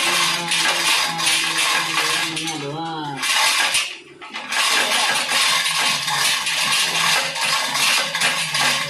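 Steel hoist chain clinking and rattling continuously while it holds a cast flywheel housing being fitted to an engine block, with a short break about four seconds in. A voice or music sounds faintly underneath.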